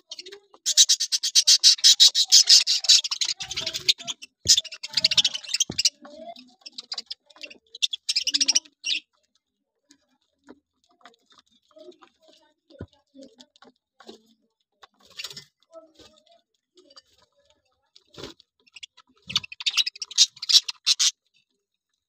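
A flock of budgerigars chattering in bursts of rapid, buzzy chirps. The longest and loudest burst comes in the first few seconds, with shorter bursts after it and again near the end. Between the bursts there are only scattered faint clicks.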